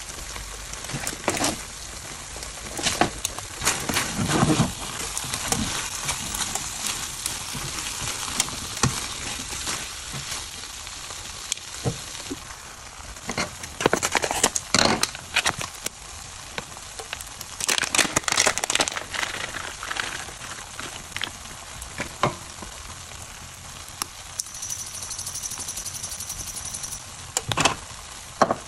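Rice noodles with chicken and egg sizzling in a nonstick frying pan, with repeated scrapes and knocks as a utensil tosses them against the pan, the busiest stretches in short bursts.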